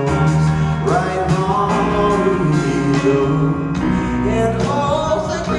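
Live band music: keyboards over a steady low bass, with a man's voice singing sliding notes.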